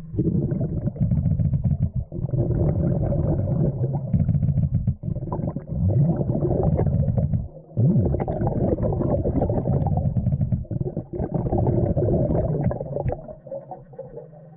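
Loud underwater rumbling and gurgling close to a diver, in long stretches with short breaks and a few rising, bubbly glides.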